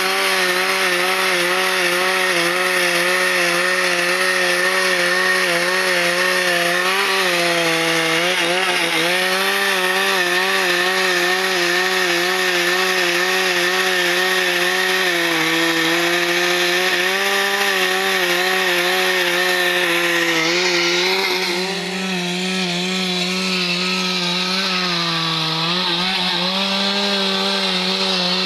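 Husqvarna two-stroke chainsaw running at high speed while cutting eucalyptus (bluegum) wood, its engine note wavering with the load. About three-quarters of the way through the note shifts and the level dips briefly, then the saw settles back into the cut.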